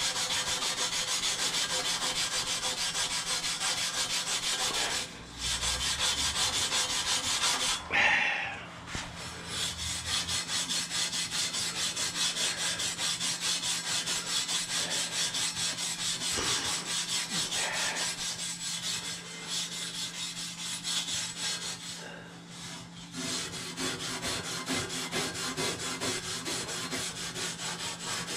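Wire wool rubbed briskly back and forth over a Jaguar Mk2's chrome bumper: a fast, continuous scratchy scrubbing that stops briefly a few times. It is the worn, damaged chrome being scrubbed with wire wool to clean it up.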